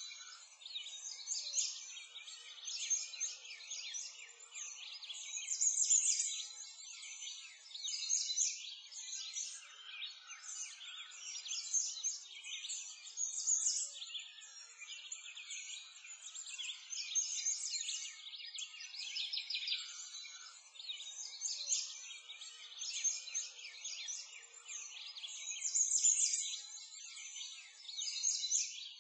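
A dense chorus of songbirds chirping and trilling, many short high calls overlapping continuously, with nothing low underneath.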